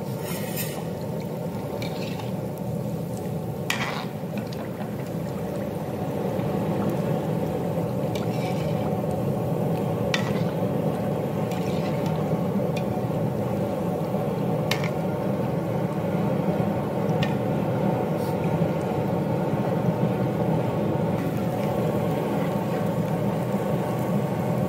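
Breadcrumb-coated potato tikki shallow-frying in hot oil: steady sizzling and bubbling, a little louder from about six seconds in, with a few sharp ticks scattered through.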